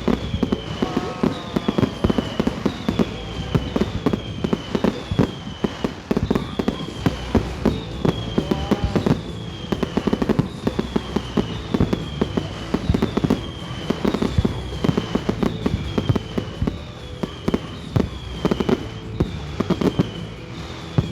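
Firework display: a dense, continuous run of bangs and crackles from bursting shells. A high falling tone repeats about once a second throughout.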